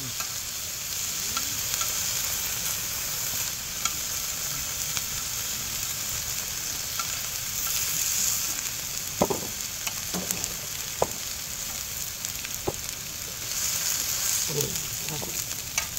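Korean beef intestines (gopchang and daechang), offal and mushrooms sizzling steadily in their fat on a round griddle plate. A few sharp clicks come from the utensils on the plate about nine to thirteen seconds in.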